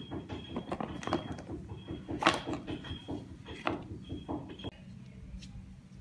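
Cardboard watch box and its packaging being handled and opened by hand: a run of irregular clicks, taps and rustles, the loudest about two seconds in, thinning out after about five seconds.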